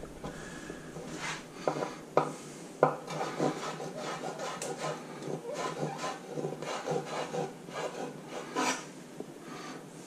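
Kitchen knife mincing gherkins on a wooden chopping board: quick, irregular taps of the blade on the wood, mixed with the blade rubbing and scraping across the board.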